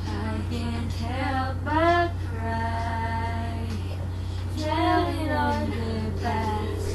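A woman's singing voice with music, notes sliding up and being held, loudest twice, about two seconds in and near five seconds in. A steady low hum runs underneath.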